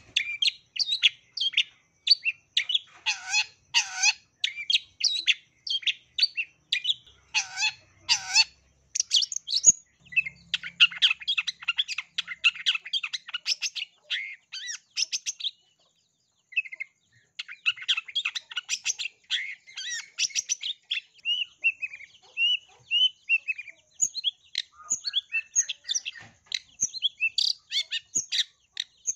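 Long-tailed shrike singing a fast, continuous song of high chattering notes and mimicked calls. The song breaks for about a second near the middle and has a run of short falling whistles later on.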